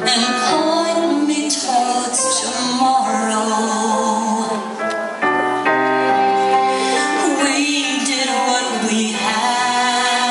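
A woman singing live into a handheld microphone over backing music, her voice holding long sustained notes.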